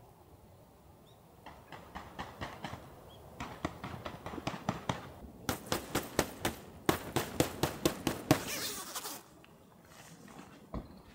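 A quick, even run of sharp taps or knocks, about four a second, growing louder, with a short rustling hiss just before they stop.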